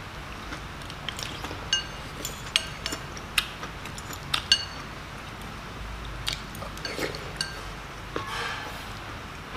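Metal spoons and forks clinking against ceramic soup bowls at irregular intervals, with slurping and chewing of soup; a longer slurp comes about eight seconds in.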